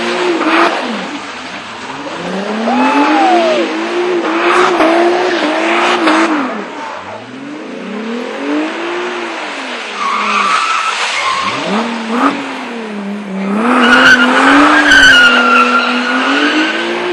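A car doing a burnout: the engine revs up and down again and again while the tyres squeal, the squeal loudest near the end.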